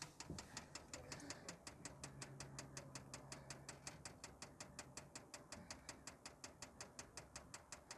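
Diesel heater's fuel dosing pump ticking faintly and evenly, about five to six clicks a second, as it primes the fuel line. It is drawing bubbles, and the owner suspects the pump is not delivering enough diesel.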